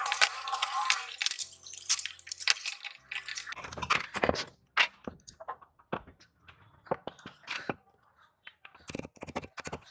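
Metal clicking and clinking of the restored scissors and small steel parts being handled. It starts with a dense scraping rattle for about three seconds, then comes as separate sharp clicks and taps.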